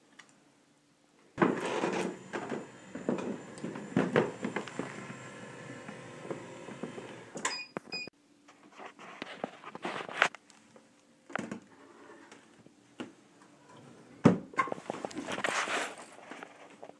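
Stair lift with a faint steady hum, irregular knocks and rattles, and two short high beeps in quick succession about seven and a half seconds in.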